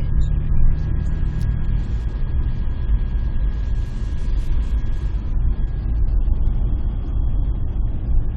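Steady low rumble of a motor vehicle running, with a faint steady whine over it.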